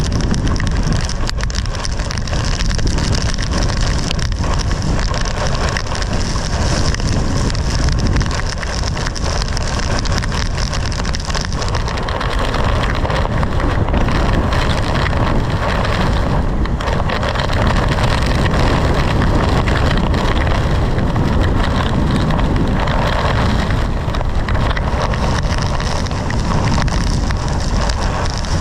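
Heavy wind-driven rain and hail beating steadily on a car's windshield and roof, heard from inside the car, over a deep rumble of storm wind gusting against the vehicle.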